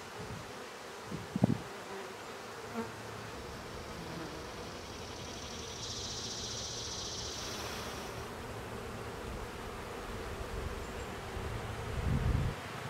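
Honeybees buzzing steadily around an open hive as brood frames are lifted out. A sharp knock comes about a second and a half in, a higher buzz rises for a couple of seconds in the middle, and a dull thump comes near the end.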